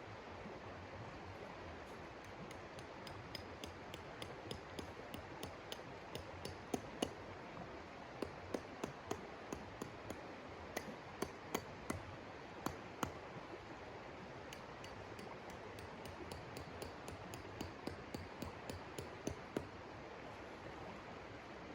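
Irregular sharp clicks and light clinks, at times several a second, over a steady hiss.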